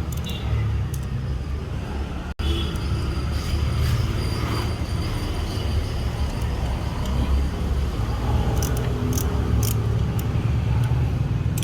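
Steady low background rumble, with a few light sharp clicks about nine seconds in.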